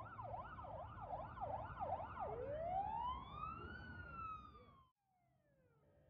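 Police car siren on a fast yelp, its pitch sweeping up and down about twice a second. It then switches to a slow wail that climbs and falls once, and cuts off suddenly near the end.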